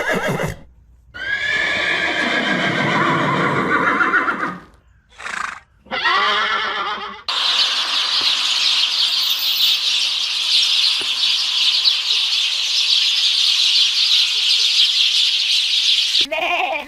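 A horse neighing: several pitched, wavering calls in the first seven seconds. Then a long, steady, high-pitched rasping hiss runs for about nine seconds and cuts off suddenly, followed by a short call at the very end.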